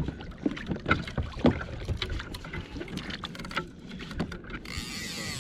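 Scattered knocks and small splashes at the side of a fishing kayak as a just-caught fish is held in the water alongside, then a short even hiss near the end.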